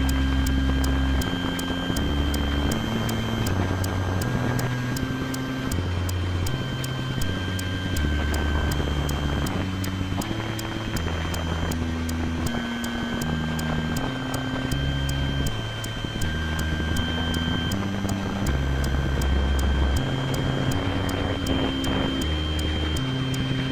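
Improvised electronic synthesizer music: a low, droning bass line stepping between notes every second or so, under two held high tones and a steady, even ticking pulse.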